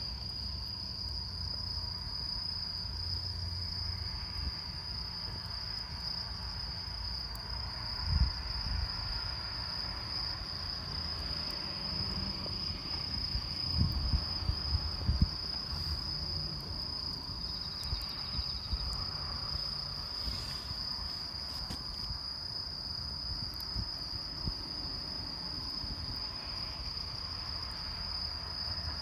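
Crickets trilling steadily on one high note, over a campfire with faint scattered crackles. A few low thumps stand out about 8 seconds in and again around 14 to 15 seconds.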